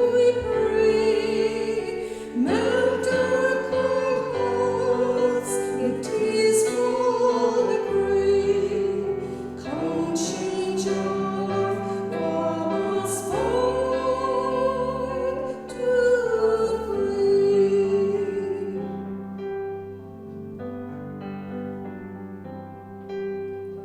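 Hymn music: sung, held notes with vibrato over an instrumental accompaniment. It grows quieter in the last few seconds.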